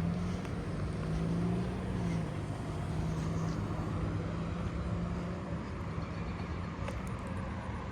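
Car engine running at low speed as a car pulls out, a steady low hum that weakens after about five seconds.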